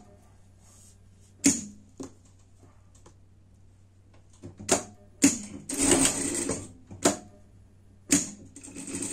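Industrial sewing machine stitching in two short runs, about six and nine seconds in, between sharp mechanical clicks and knocks as the fabric is repositioned under the presser foot. A low steady hum runs underneath.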